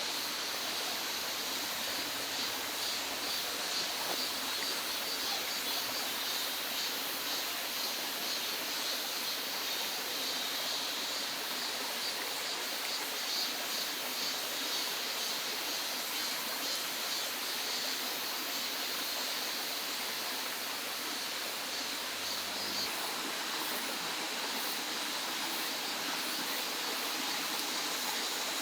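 Mountain valley stream flowing steadily, an even rush of water with a thin, steady high hiss above it.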